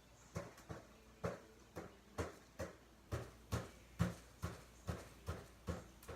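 Fairly evenly spaced thuds on the floor, a little over two a second, from hands and feet landing during burpees. They start from quiet about a third of a second in.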